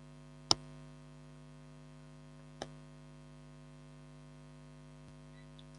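Steady electrical mains hum on the microphone, with two sharp clicks from a computer mouse: a loud one about half a second in and a softer one about two seconds later.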